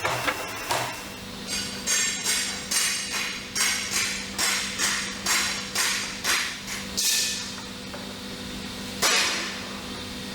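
Repeated hammer strikes, about two to three a second, stopping about seven seconds in, with one more strike near the end; a steady machine hum runs under them from about a second in.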